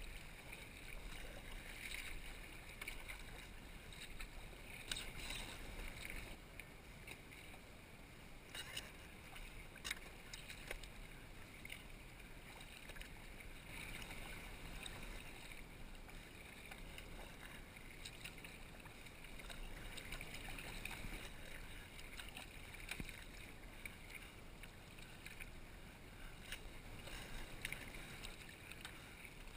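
Water splashing and lapping against a kayak as it is paddled, swelling and falling with the strokes, with an occasional sharper splash.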